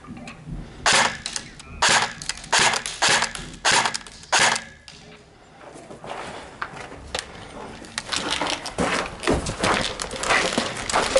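Battery-powered airsoft rifle fired in single shots, about nine sharp cracks over three and a half seconds. Near the end comes denser crunching of footsteps on gravel.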